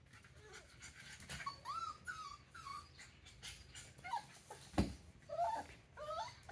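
Puppies whimpering and whining in short high-pitched cries that rise and fall, one after another, with a single thump just before five seconds in.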